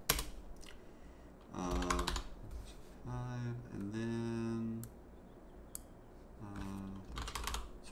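Computer keyboard typing in a few scattered keystrokes, one sharp one right at the start. Between them a man hums several drawn-out low notes.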